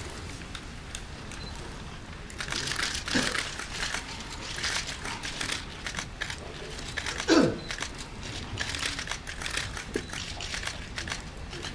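Small fire of burning sticks crackling and popping, with a loud, short falling sound about seven seconds in.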